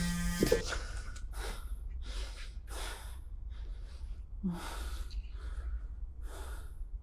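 A person breathing hard and fast, ragged breaths coming about twice a second, over a low steady rumble.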